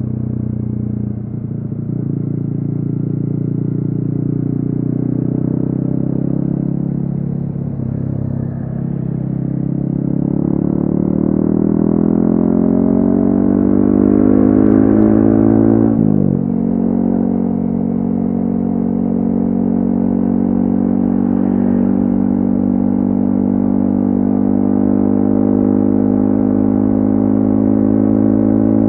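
Yamaha XSR155's single-cylinder engine running through a DIY exhaust while riding. The revs climb steadily from about ten seconds in, then drop sharply on a gear change about halfway through, and the engine settles into steady cruising.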